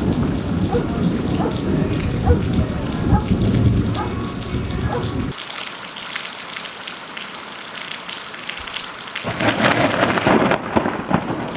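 Rain falling during a thunderstorm with a deep rumble of thunder; the rumble cuts off suddenly about halfway, leaving the hiss of rain, and a louder burst of rumble and rain comes back near the end.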